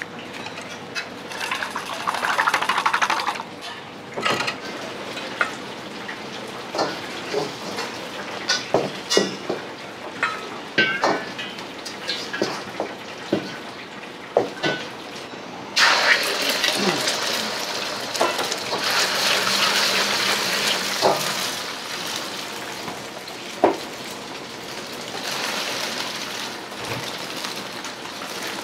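A steel ladle clinking and scraping against a wok and metal bowls in a series of sharp clicks. About halfway through comes a sudden loud sizzle as egg goes into the hot oiled wok, and it keeps frying with ladle clicks over it.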